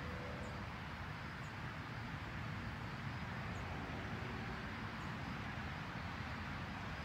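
Steady outdoor background noise, a low rumble with hiss, with a few faint short high chirps a second or two apart.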